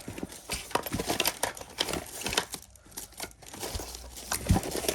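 Small items being handled and rummaged through by hand: rustling and crinkling, with many irregular clicks and knocks and one louder knock near the end.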